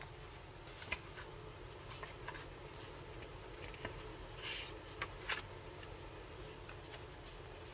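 Paper and card being handled: scattered short rustles and light taps, with a slightly longer rustle about four and a half seconds in, over a steady low hum.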